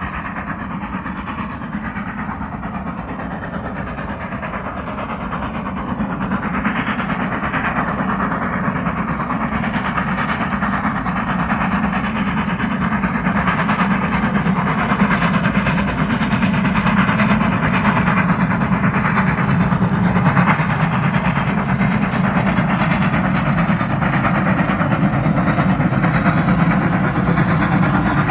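Great Western Railway steam locomotive hauling a train of coaches up a gradient, its exhaust chuffing and the train rumbling along the rails, growing louder as it draws near.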